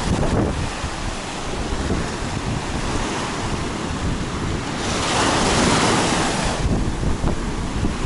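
Strong wind buffeting the microphone over storm surf on a sea beach. About five seconds in, the rush of a breaking wave swells up for a couple of seconds, then falls back.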